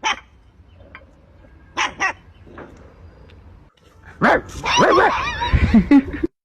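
Dog barking: one bark at the start, two quick barks about two seconds in, then louder, denser barking over the last two seconds that cuts off suddenly.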